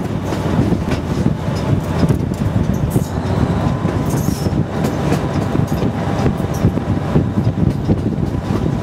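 Diesel locomotive 401Da-131 running along the track: steady engine and running-gear noise, with irregular clacks from the wheels on the rails.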